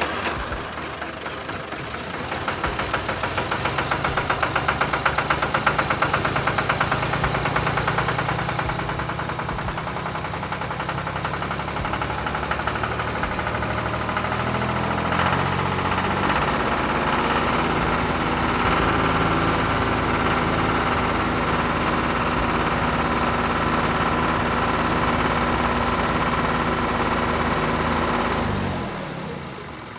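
Tractor engine running steadily with a rapid, even beat, growing a little louder over the first few seconds and dropping away near the end.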